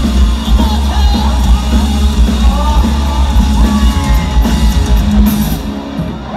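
Live rock band playing loud: distorted electric guitars, bass and drums with vocals, through a large PA. The song winds down and drops away near the end.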